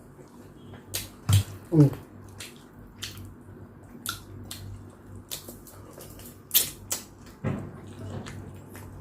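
Close-miked eating sounds: a string of short mouth clicks and smacks while eating chicken tinola soup, with a couple of brief louder sounds that have a short pitched, hum-like part, about two seconds in and again near the end.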